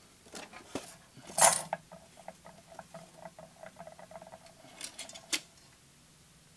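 Voice of Music 1201 record changer mechanism being handled and turned over: one knock about a second and a half in, then a run of light, rapid clicks and rattles, with a few sharper clicks near the end.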